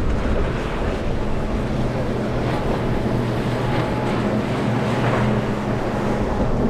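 Outboard engines of a WorldCat power catamaran running at speed, a steady low drone under the hiss of spray off the hull, with wind buffeting the microphone.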